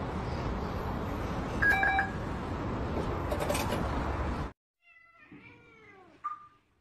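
Steady outdoor noise with one short beep about a second and a half in, from a turnstile card reader. Then a sudden cut to quiet, and a domestic cat gives a soft falling meow near the end, followed by a brief higher chirp.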